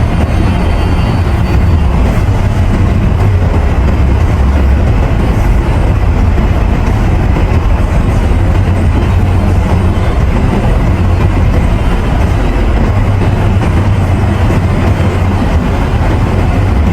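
Steady road and tyre noise inside a moving car: a loud, even low rumble with hiss above it, unbroken throughout.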